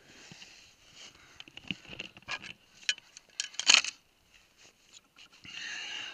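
Scrapes and clicks of a climber downclimbing rock: boots scuffing on stone and metal climbing gear (carabiner, belay device, ice axe) knocking and clinking, irregularly, with the loudest clatter just before four seconds in.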